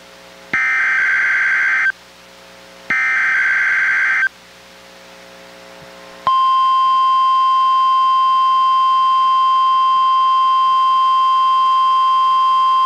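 NOAA Weather Radio alert signal received on a Reecom R-1630 weather radio: two bursts of SAME digital header data, each about a second and a half long and a second apart, then, about six seconds in, the steady 1050 Hz NWR warning alarm tone starts and holds. It is the weekly test of the radio's warning alarm.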